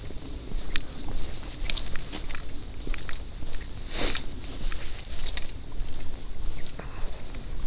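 Footsteps crunching and crackling through dry fallen leaves, irregular sharp crunches with one louder one about four seconds in, over a low wind rumble on the microphone.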